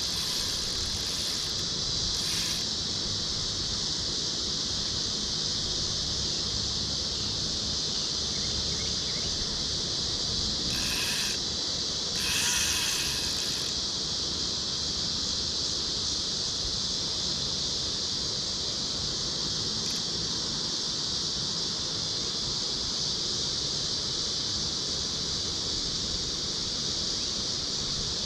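Steady, high-pitched insect chorus buzzing without a break, with a couple of brief bursts of noise about eleven and thirteen seconds in.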